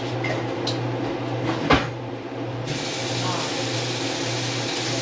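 A single knock, then a kitchen tap running in a steady hiss for about three seconds, turned on and off sharply, over a steady low hum.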